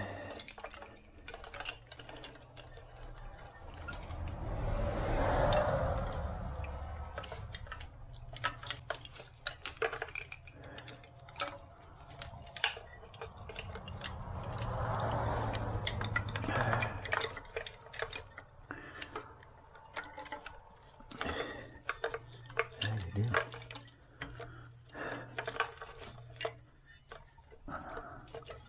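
Scattered clicks, taps and light rattles of hands and tools working wiring-harness connectors and clips loose in a car's engine bay. Twice, about five and fifteen seconds in, a rushing noise swells for a few seconds and fades.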